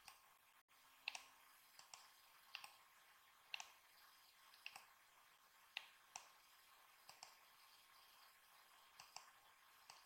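Faint computer mouse clicks, single and in quick pairs, scattered irregularly about once a second over low background hiss, as edges are picked and a command is confirmed in CAD software.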